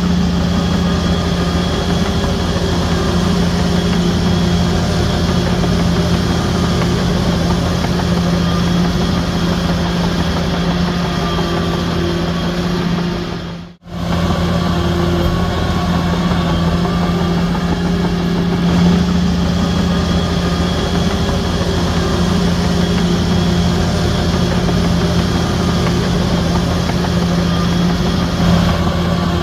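Heavy diesel earthmoving machinery running steadily, the engine's drone holding an even pitch. The sound cuts out for an instant about halfway through, then carries on the same.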